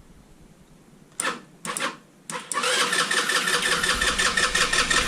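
Kymco Like 200i scooter's single-cylinder four-stroke engine being started: two short bursts of the electric starter, then the engine catches about two and a half seconds in and keeps running with a steady, even beat. This is the first start after a ripped fuel-pump hose, the cause of its no-start, was replaced.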